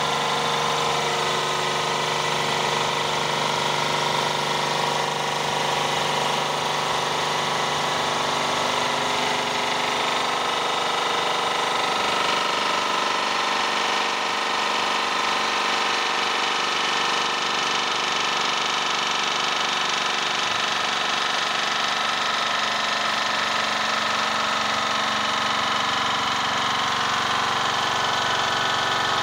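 Electric-motor-driven triplex plunger pump running steadily under pressure on a test bed, a constant mechanical whir with a hum of several steady tones.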